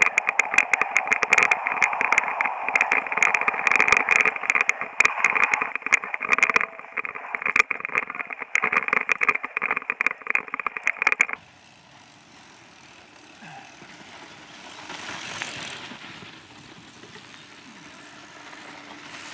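Loud, dense rattling and clattering from an action camera carried on a mountain bike descending a rough dirt trail at speed. It cuts off sharply about two-thirds of the way through, leaving quieter outdoor sound with a couple of soft swells as a mountain bike rides through a dusty dirt corner.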